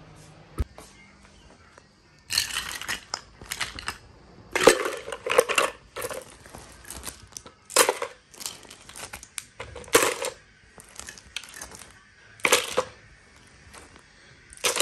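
Small hard objects clattering and clinking in short bursts, about every two to three seconds.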